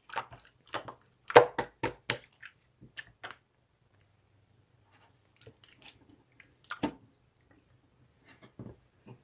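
A run of short, sharp clicks and squishes, close together for the first three seconds, then sparse after a quiet gap of about two seconds.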